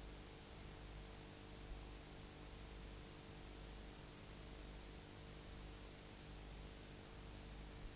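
Steady hiss with a low, even hum underneath: the noise floor of an old camcorder recording. There are two faint clicks, one about two seconds in and one near the end.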